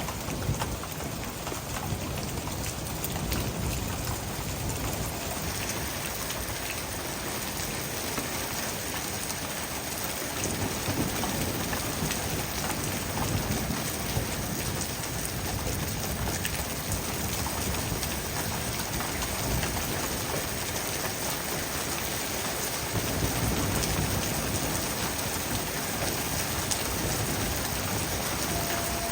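Heavy rain pouring down in a steady hiss, with low rumbling that swells and fades several times underneath.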